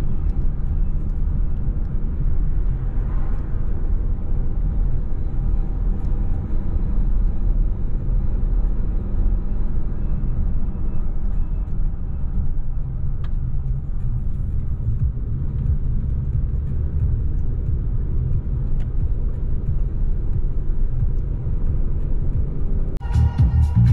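Steady low rumble of a car driving on a winding road, engine and tyre noise heard from inside the cabin. A short pitched sound comes in near the end.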